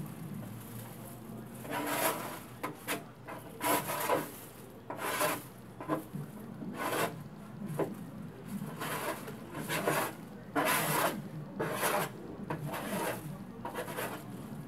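Scraping on a rusty four-burner gas grill as it is cleaned out: an irregular run of short scraping strokes, about one a second.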